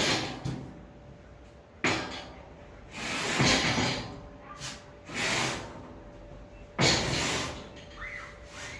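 A few separate knocks and clatters, one to two seconds apart, with a faint steady tone coming in about halfway through.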